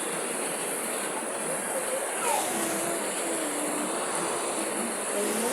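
Heavy rain pouring down with a steady hiss. Faint voices sound in the background from about two seconds in.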